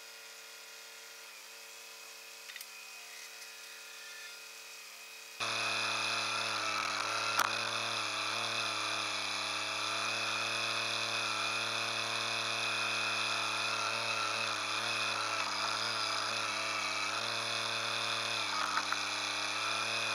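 Kubota compact tractor's diesel engine running, heard faintly and steadily at first. About five seconds in it becomes much louder and close up, and its pitch dips and wavers as the backhoe digs.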